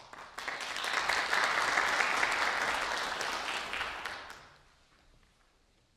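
Audience applauding. The clapping starts just after the beginning, holds steady, then dies away about four and a half seconds in.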